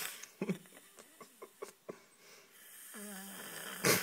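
A man snoring: a sputtering breath with a string of short pops, then a rasping breath in with a brief pitched rumble, ending in a sudden loud burst of breath near the end.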